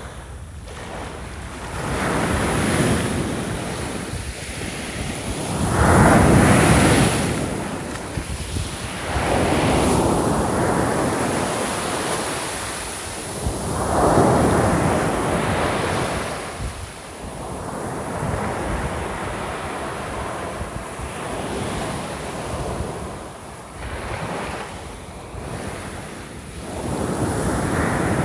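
Small waves breaking and washing up a shore, each one a rushing surge that swells and fades every few seconds, the biggest about 6 and 14 seconds in and another near the end.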